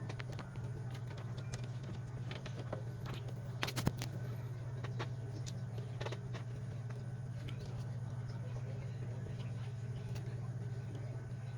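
Scattered light clicks and taps, like small parts and tools being handled during a phone teardown, over a steady low hum. A quick run of sharper clicks about three and a half seconds in is the loudest moment.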